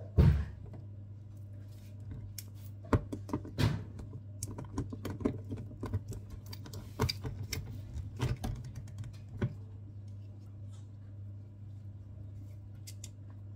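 Small portable blender handled: plastic clicks and knocks as its motor base is fitted onto the jar and the assembled blender is picked up, stopping about nine and a half seconds in. A steady low hum sits underneath throughout.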